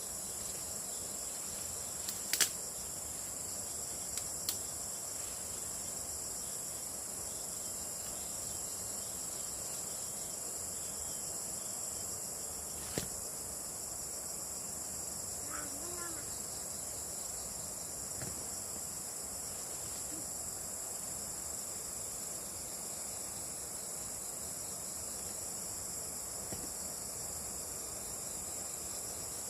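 Steady, high-pitched chorus of insects such as crickets or cicadas, with a few short sharp clicks, the loudest a couple of seconds in.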